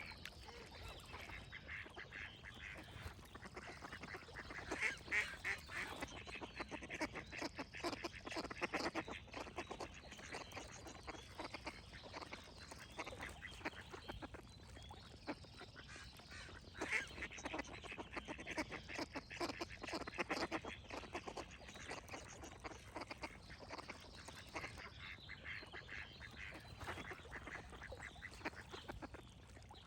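Ducks quacking in quick runs of calls, swelling into louder bursts several times, with faint high birdsong behind.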